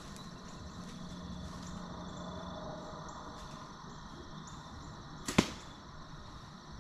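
A bow shot: one sharp, loud snap of the bowstring releasing about five seconds in, a follow-up shot at a deer already hit.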